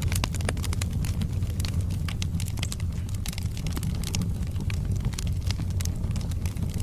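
Wood fire burning in a fireplace: logs crackling with many sharp, irregular pops over a steady low rumble of the flames.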